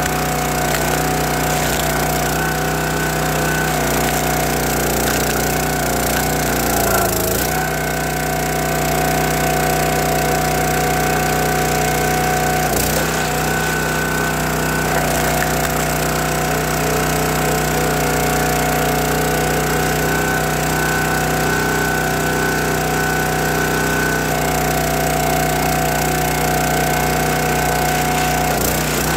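Log splitter's small gas engine and hydraulic pump running steadily. About seven seconds in the engine's pitch dips and recovers as it labours under the load of the wedge forcing through the log. There is one sharp crack a little after twelve seconds, typical of the wood giving way.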